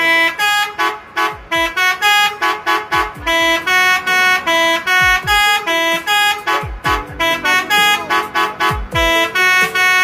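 Telolet horn on a luxury tour bus, a set of tuned air horns, playing a fast tune of short, clear notes in quick succession, with a deep drum beat underneath.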